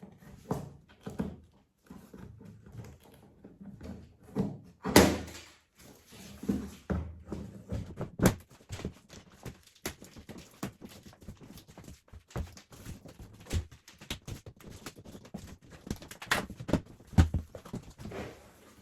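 Handling noises: irregular knocks, clicks and thuds of objects being moved and set down in a small room, with louder thumps about five and eight seconds in.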